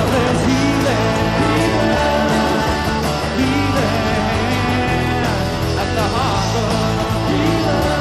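A live rock band playing an instrumental passage: electric guitar over acoustic guitar, bass and drums, with no sung words.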